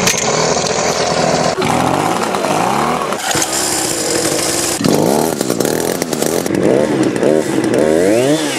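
Two-stroke Craftsman chainsaw engine running and being revved up and down repeatedly, in short segments that change abruptly, with quick rising and falling revs near the end.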